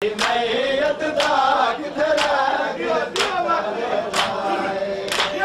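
A group of men chanting a noha, a mourning lament, together while beating their chests in unison (matam), the hand-on-chest slaps landing in a steady rhythm about once a second.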